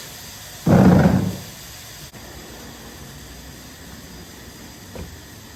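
A felt engine undercover being handled and pushed into place: a brief rustling scrape about a second in, then faint clicks over a steady hiss.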